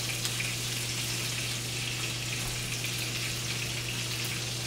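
Rack of lamb searing in a hot oiled skillet: a steady sizzle as the outside of the meat browns, with a low steady hum underneath.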